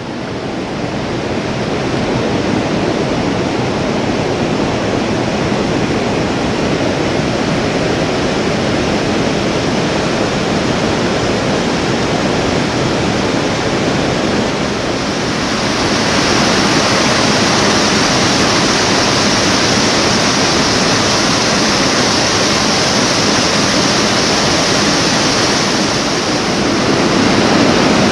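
Steady rushing of fast-flowing water, as at rapids, getting brighter and a little louder about halfway through.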